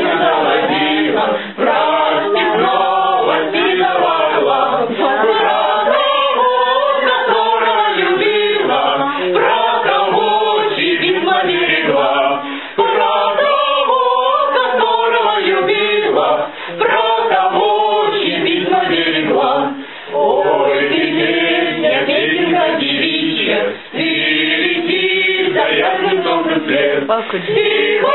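A mixed group of young men and women singing a song together, with brief breaks between phrases.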